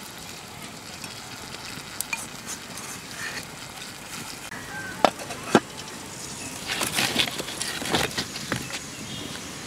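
Curry simmering with a steady low hiss in an aluminium pot over a wood fire. About five seconds in come two sharp metal clinks, then a burst of clattering and scraping near the end as the aluminium lid is set on the pot.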